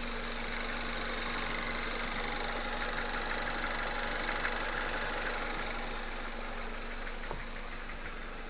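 Skoda Octavia A7 engine idling, with a fast, light knocking from under the bonnet over the steady running: the knock the owner is trying to trace.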